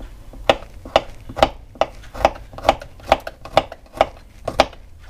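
Chef's knife slicing a garlic clove on a cutting board: about ten sharp knocks of the blade on the board, roughly two a second.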